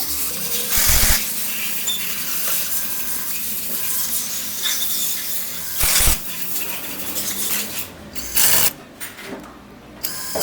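Metal tools and engine parts clinking and rubbing as a motorcycle clutch side cover is put back on, with a few short, loud bursts of noise.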